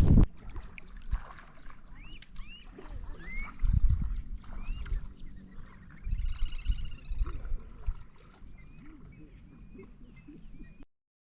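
Wild birds chirping over a steady high insect drone, with intermittent low thumps and rumbles. The sound cuts off abruptly near the end.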